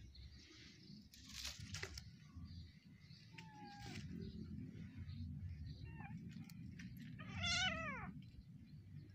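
Kitten meowing while it is grabbed and handled by a monkey: a short mew about three and a half seconds in, a brief cry around six seconds, and one loud, long meow falling in pitch near the end.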